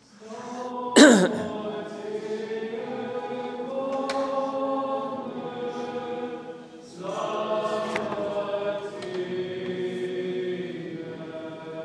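Voices chanting an Orthodox liturgical response in two long sung phrases, the sung response that closes the Gospel reading. A single sharp knock about a second in.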